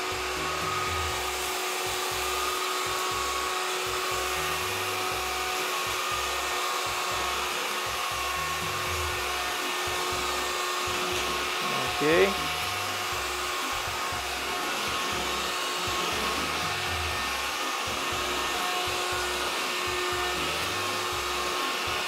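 Hyundai VC01R 12 V cordless stick vacuum cleaner running steadily with its motorized brush head, sucking spilled sugar off a laminate floor: an even whine over hiss. A brief louder swell comes about twelve seconds in.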